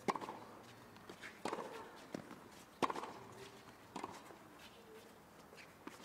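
Tennis ball struck back and forth by rackets in a doubles rally on a hard court: four sharp hits about a second and a half apart, with fainter ticks between.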